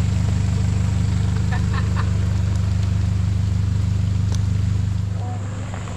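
A four-wheel-drive's engine running steadily with a low, even hum; it eases off about five seconds in.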